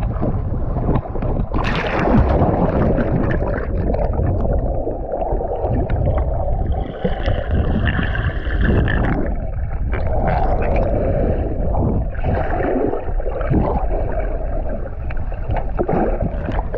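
Water sloshing and gurgling close around the microphone over a heavy low rumble, with uneven splashes.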